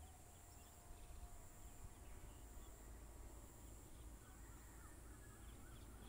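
Near silence: faint outdoor rural ambience with a low rumble and a few faint, short bird chirps in the second half.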